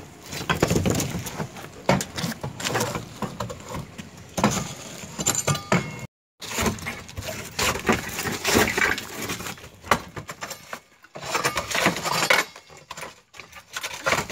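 Irregular clatter of sharp knocks, clinks and scrapes, with a brief complete break about six seconds in.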